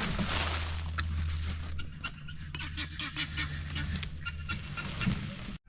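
Farm fowl honking in a run of short, repeated calls over a steady low rumble; the sound cuts off suddenly near the end.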